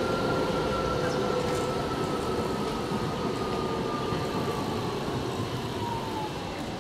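An electric low-floor tram approaching with a steady whine that slowly falls in pitch, over a low rumble of rolling wheels and street noise.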